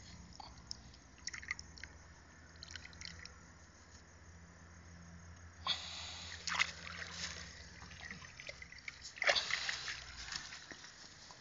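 Pond water dripping and splashing around a wet hand. Scattered small drips come first, then louder splashy bursts about six seconds in and again about nine seconds in.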